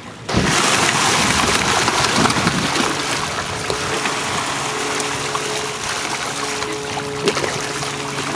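Close, steady splashing and fizzing of a dense school of mullet at the water surface, starting suddenly. A low steady hum joins about three seconds in.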